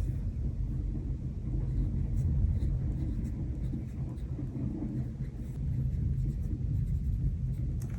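Pen writing on planner paper in short, faint scratchy strokes, over a steady low rumble of thunderstorm ambience.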